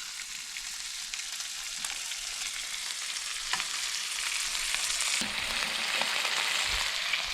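Trout frying in hot oil in a pan, sizzling steadily with scattered pops and crackles; the sizzle grows a little louder toward the end.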